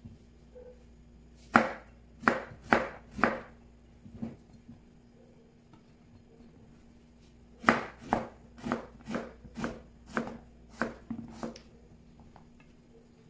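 Kitchen knife cutting through raw kohlrabi and knocking on a cutting board: four quick cuts, a pause, then a run of about eight more cuts at roughly two a second.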